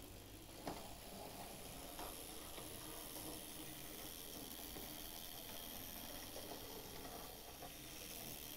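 Faint steady running noise of an OO gauge model locomotive's small electric motor and wheels on the track, with a sharp click about a second in.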